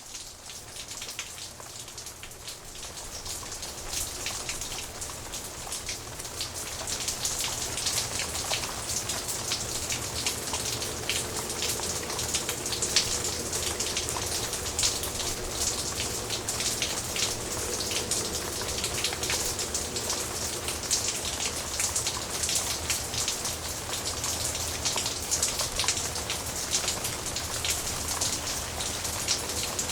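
Steady rain falling: a dense hiss with many individual drops ticking on surfaces, fading in over the first few seconds and then holding even, with a faint low hum underneath.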